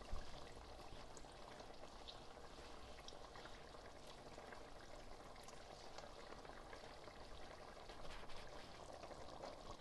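Chicken curry sauce simmering in a large pot on a gas flame, with faint scattered pops of bubbles.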